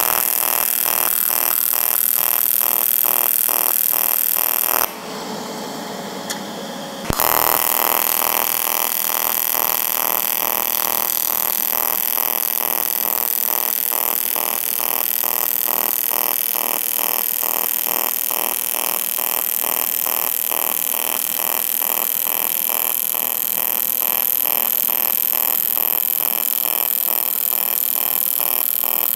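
AC TIG welding arc on aluminum from an HTP Independence 210 AC/DC inverter welder, square wave with pulse, buzzing in a steady pulsing rhythm. The arc breaks off about five seconds in and strikes again about two seconds later.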